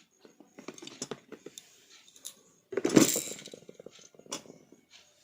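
Small household items being handled and set down: a run of light clicks and knocks, with one louder clatter about three seconds in.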